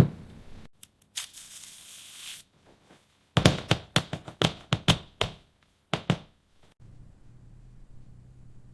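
A short hiss, then a quick run of sharp knocks and clicks, about eight in two seconds with two more after a pause, then a faint low hum.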